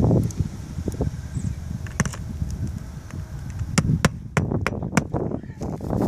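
Scattered sharp knocks and taps from hands and tools working on roof shingles, several in quick succession about four seconds in, over a steady low rumble.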